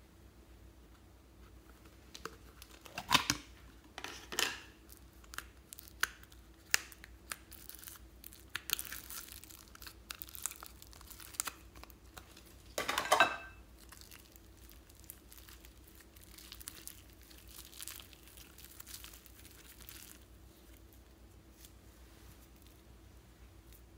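A plastic slime tub being opened and yellow slime peeled and pulled out of it by hand: crinkly tearing and sticky crackling in irregular bursts. A few loud rips stand out, the loudest about halfway through, and the sound is quieter in the second half.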